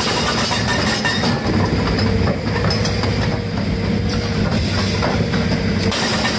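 Excavator-mounted hydraulic breaker hammering its chisel into the ground: a loud, rapid, steady pounding.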